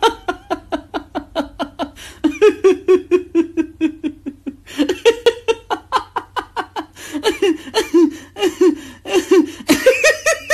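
A person laughing hard in quick, rhythmic ha-ha pulses, about five a second, in several bouts with brief pauses between them.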